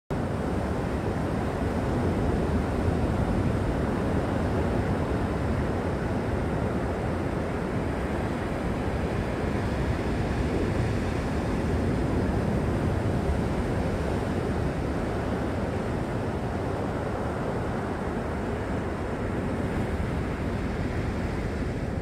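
Steady wash of ocean surf on a rock platform, with wind buffeting the microphone as a low, uneven rumble.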